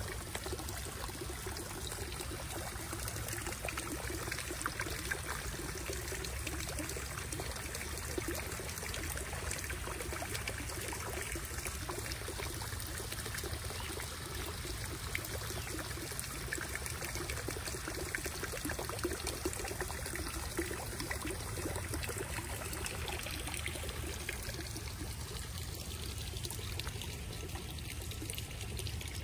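Steady trickling and splashing of running water from a backyard koi pond's small waterfall and bubbling fountain.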